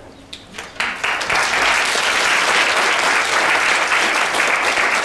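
Audience applauding. A few scattered claps come first, then it swells into steady, dense applause about a second in.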